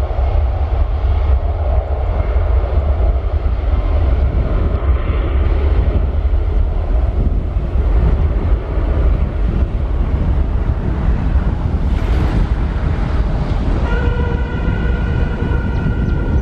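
Steady, heavy low rumble of a Boeing 777-300ER's GE90 jet engines as the airliner rolls along the runway. A steady higher-pitched whine joins in near the end.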